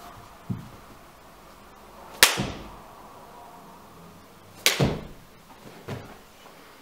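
Two sharp hand claps about two and a half seconds apart, made mid-air during explosive clap push-ups, each with a short ring in the room, and softer low thuds of the body and hands on the floor mat.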